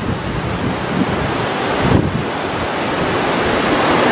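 Fast-flowing floodwater of a swollen wadi rushing past a bridge pier in a loud, steady wash, with wind buffeting the microphone.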